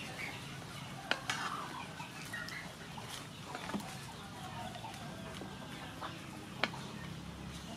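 A wooden spatula stirs beef and onions in sauce in a pan, with a few sharp knocks against the pan. Chickens cluck in the background.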